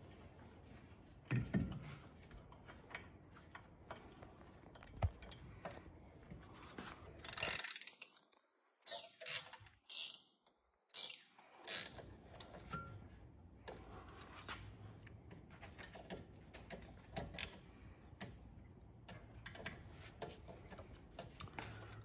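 Hand ratchet or ratcheting driver clicking irregularly as the set screws holding a two-piece brake rotor to the wheel hub are run in, with small metal taps between turns.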